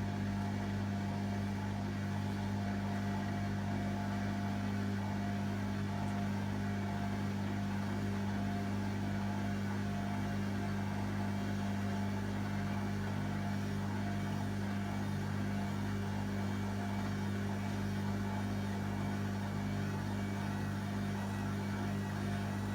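Hotpoint WMA30 washing machine motor running with a steady low hum during an unbalanced spin, the load out of balance so the machine does not spin up to full speed.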